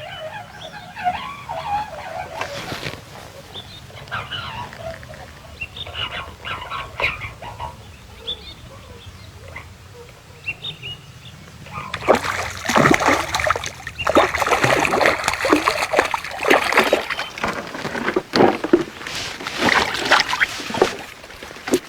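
A hooked fish splashing and thrashing at the water's surface while it is played in on the line. The splashing starts about halfway through and comes as a rapid run of sharp splashes.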